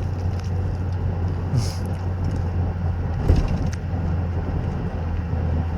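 Crunching and chewing as a bite is taken from crispy Nashville hot fried chicken, a few sharp crunches about one and a half and three seconds in, over the steady low hum of a car idling.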